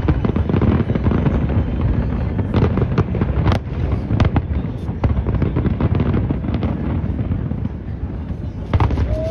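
Aerial fireworks display: many shell bursts overlapping into a continuous deep rumble, with sharp cracks and bangs standing out every second or so.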